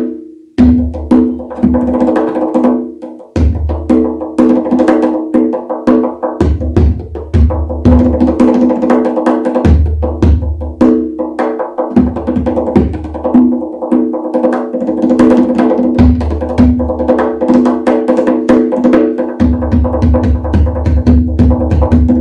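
Tonbak, a Persian wooden goblet drum with a natural skin head, played by hand in a fast rhythm of sharp finger strokes and rim clicks, with deep bass strokes every few seconds.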